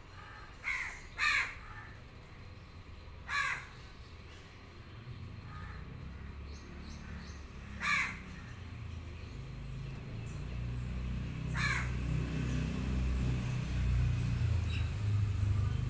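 Crow cawing: five short harsh caws, two close together at the start, then three spaced several seconds apart. A low rumble builds underneath through the second half.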